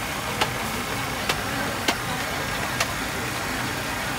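A brush spreading oil across a hot flat iron griddle: a steady hiss with four sharp clicks as the brush strikes the metal.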